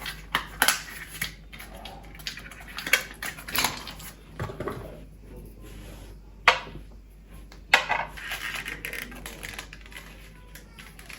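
Small hard objects clicking and knocking as they are picked up and set down, with some rustling, as gel-polish nail supplies are handled. Two sharp clicks in the second half are the loudest.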